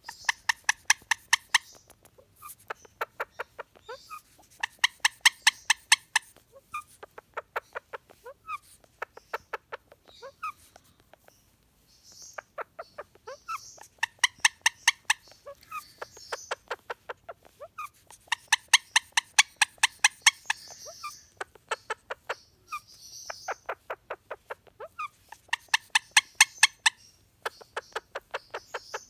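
Indian ringneck parakeet calling in rapid runs of short repeated pitched notes, each run lasting one to two seconds with brief pauses between them.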